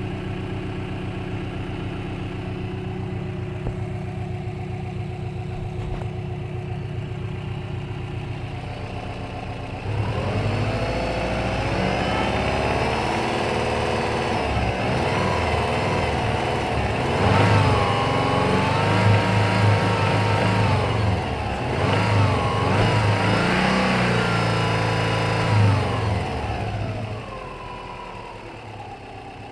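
Subaru EJ205 flat-four engine idling, then revved up and down repeatedly for about seventeen seconds before settling back to idle near the end. The engine has a knocking connecting-rod bearing: the No. 4 rod bearing has failed.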